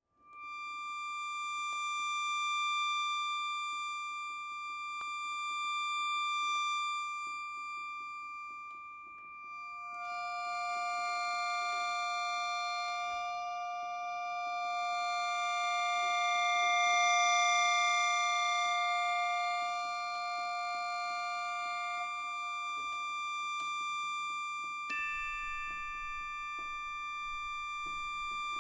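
Slow, quiet film-score music made of long held high tones layered over one another. A lower tone enters about ten seconds in and drops out a little after twenty seconds, and new tones enter near the end.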